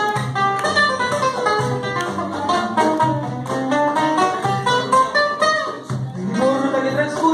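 Acoustic guitars playing an instrumental passage of a vals, a picked melody line in quick runs over lower chords.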